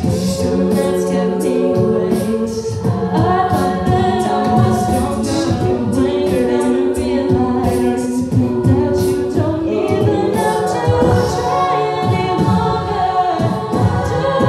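All-female a cappella group singing: a lead voice over sustained backing harmonies, with beatboxed vocal percussion keeping a steady beat.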